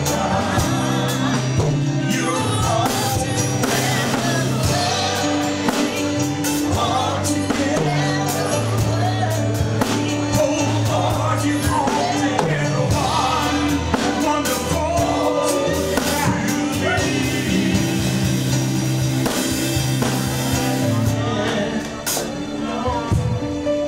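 A gospel worship song: voices singing over a band with bass and drums.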